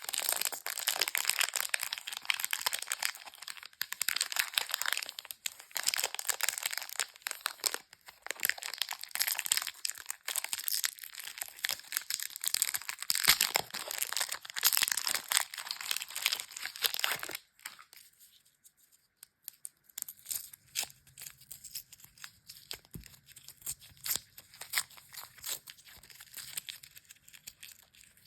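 Candy wrappers of lollipops and small chocolates crinkling and tearing as they are opened, dense and continuous for the first two-thirds. After that it drops to sparse light clicks and rustles.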